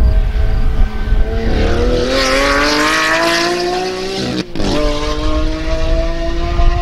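Lamborghini Aventador's 6.5-litre V12 through a full Capristo exhaust, accelerating hard: the pitch rises steadily, breaks briefly for an upshift about four and a half seconds in, then climbs again in the next gear.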